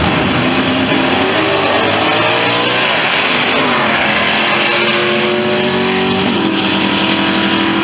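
Drag race cars launching and accelerating hard down the strip at full throttle. The engine pitch climbs, drops sharply at a gear shift about three seconds in, climbs again, and shifts once more near the end before holding steady.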